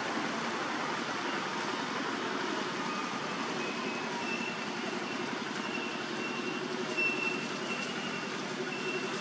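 Steady outdoor background noise with a low hum, and a faint high-pitched tone that comes and goes in short stretches from about three seconds in.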